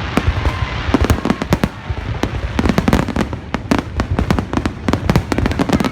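Aerial fireworks display going off in quick succession: a dense stream of sharp bangs and crackles, several every second.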